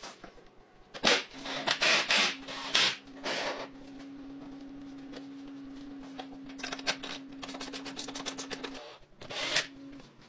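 Plastic and rubber parts of a mini dirt bike rubbing and scraping as they are handled and fitted, with the seat being pressed into place. A quick run of clicks comes past the middle and a final scrape near the end, over a steady low hum.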